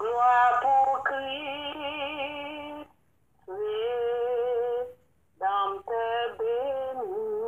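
A high voice singing a slow melody in long, wavering held notes, in three phrases with short breaks about three and five seconds in.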